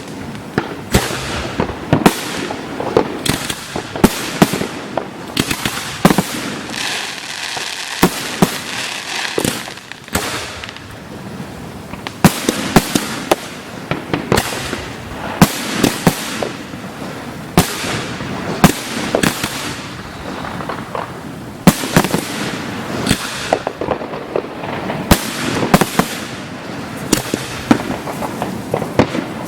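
Fireworks display: dense, overlapping bangs several times a second over a continuous crackle, with some bangs much louder than the rest.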